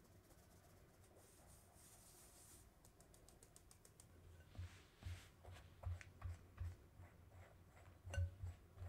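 Cake flour shaken through a fine mesh sieve into a glass bowl: a soft hiss, then a run of quick light ticks. About halfway through, a silicone spatula begins cutting the flour into creamed butter, with irregular soft thumps and clicks against the glass.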